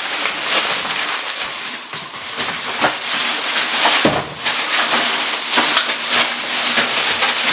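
Plastic shopping bag rustling and crinkling as things are unpacked from it on a kitchen counter, with a knock about four seconds in.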